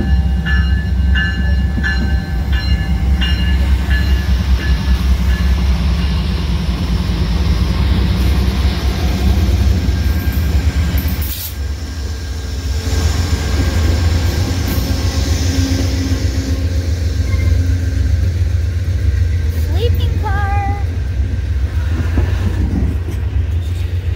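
Amtrak Coast Starlight pulling into a station. The GE P42DC diesel locomotive rumbles past with its bell ringing about twice a second, the bell stopping about three seconds in. Then the bilevel Superliner passenger cars roll by with a steady rumble of wheels on rail.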